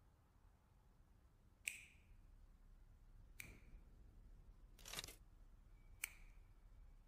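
Four sharp clicks, each with a brief high metallic ring, spaced a second or two apart in near quiet; the third is longer than the others.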